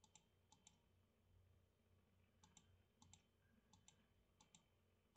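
Faint computer mouse clicks, each a quick press-and-release pair, six pairs in all at an uneven pace, as on-screen settings are clicked through.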